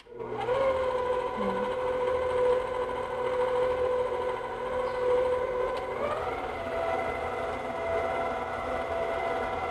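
Electric stand mixer motor starting up and running steadily, its dough hook turning through flour and liquid to start a bread dough. The whine steps up in pitch about six seconds in.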